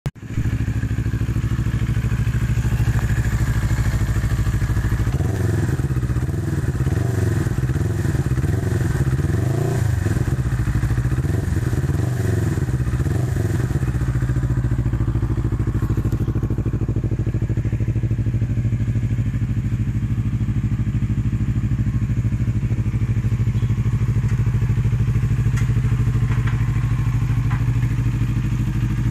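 CFMoto NK400 parallel-twin engine idling steadily through an aftermarket Akrapovic twin-pipe slip-on exhaust.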